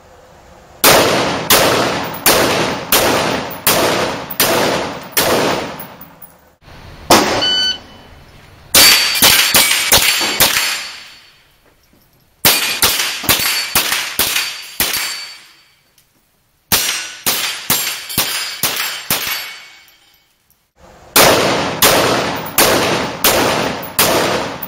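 Rifle fired in rapid strings of about two shots a second, five strings with short pauses between them, each shot sharp with a short ringing tail.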